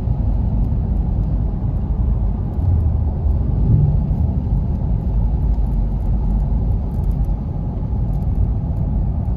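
Steady low rumble of a car driving at road speed, heard from inside the cabin: tyre and engine noise on the road.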